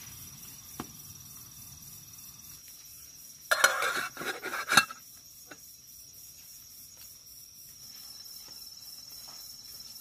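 Crickets chirring steadily, with a short metallic clatter of camp cookware being handled about three and a half seconds in, lasting about a second.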